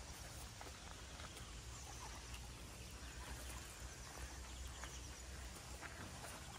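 Faint outdoor ambience: a low steady rumble with scattered soft clicks and a few brief high chirps.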